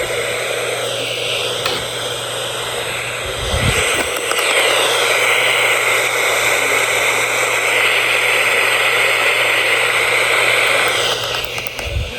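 Radio static: a steady hiss from an FM receiver with no station coming through, over a faint low hum, with a brief low thump about four seconds in and again near the end.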